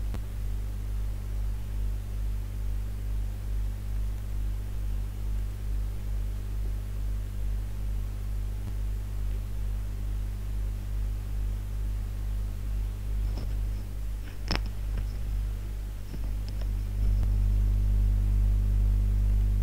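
Steady low electrical hum with a few evenly spaced overtones, from the recording's audio chain. A single sharp click comes about fourteen and a half seconds in, and the hum grows louder a couple of seconds later.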